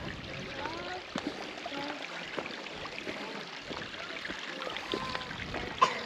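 A stream running steadily, with faint indistinct voices of people now and then.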